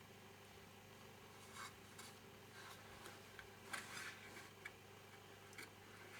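Near silence over a low steady hum, with a few faint, short clicks and scrapes of small hand tools being handled, the clearest cluster about four seconds in.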